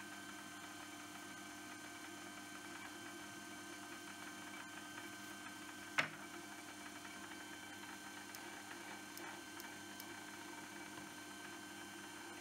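Metal lathe running with a brass workpiece spinning in the chuck: a faint steady hum with a higher whine above it. A single sharp click sounds about six seconds in.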